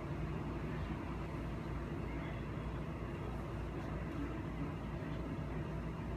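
Steady low hum with an even background noise, unchanging throughout.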